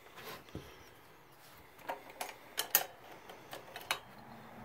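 Metal parts being handled: a dull knock, then a series of sharp metallic clicks and clinks, the loudest a little before the three-second mark.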